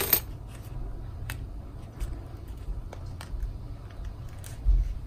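Grosgrain ribbon rustling and crinkling in the hands as a needle and thread are worked through it for a hand-sewn running stitch. There is a sharp click at the start, faint ticks scattered through, and two low thumps near the end.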